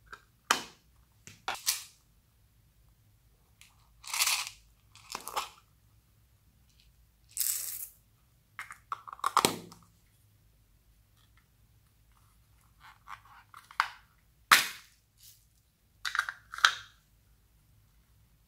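Small plastic toy containers being clicked open and shut and their contents of slime and kinetic sand emptied into a glass dish: about a dozen short separate clicks, crackles and sticky crunching handling noises with quiet gaps between.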